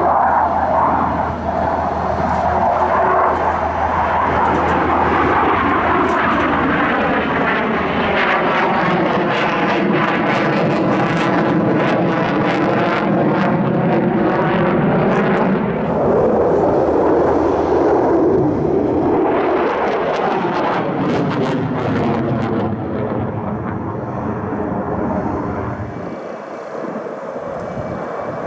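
F-16 fighter jet's engine roaring continuously as it flies display manoeuvres overhead, with a sweeping, swirling tone as its distance changes. The roar fades a little in the last few seconds.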